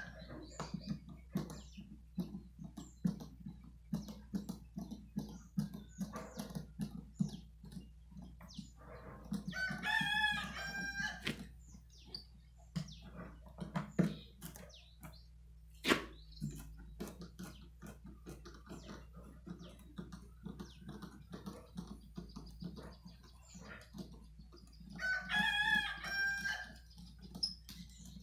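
A rooster crowing twice, once about ten seconds in and again near the end. Between the crows come light knocks and clicks from hands and a screwdriver working on a wooden speaker cabinet.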